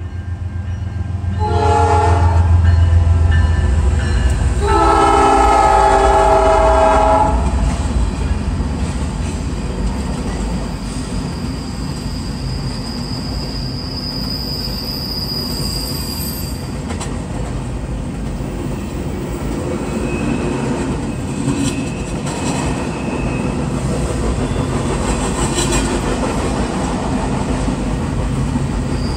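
Freight train passing close by: a diesel locomotive's multi-tone horn gives a short blast and then a longer one while the engines rumble past, then intermodal container well cars roll by with a steady rumble and clatter of wheels on rail. A thin high wheel squeal rises for a few seconds midway.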